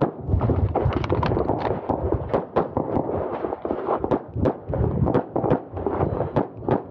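Pistol fired in quick strings, sharp cracks coming two to three a second with short pauses between strings.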